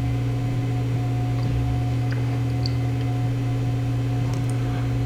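Steady electrical hum, a low drone with a fainter higher tone over it, and a few faint small clicks.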